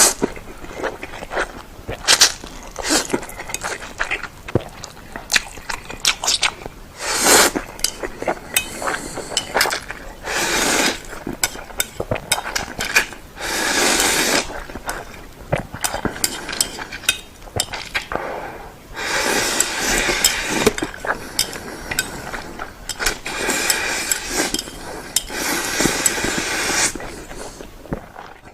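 Close-up eating of spicy Indomie instant noodles: repeated long slurps and wet chewing, with many small clicks and clinks of the utensil against the bowl.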